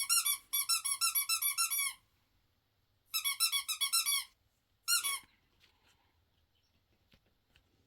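Rapid high-pitched squeaking, about eight squeaks a second, in three bursts with a short one near the end, each squeak dipping slightly in pitch.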